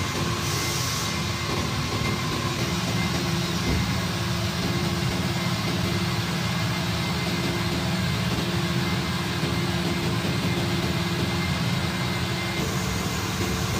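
Steady low mechanical hum of running machinery in a workshop, with a few faint steady tones riding on it; its tone shifts slightly near the end.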